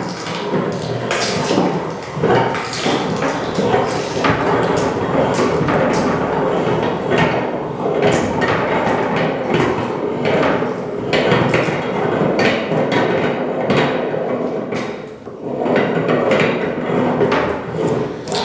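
Hand-cranked Star metal meat grinder crushing raw carrots: a continuous grinding crunch with irregular sharp clicks and knocks as the crank turns.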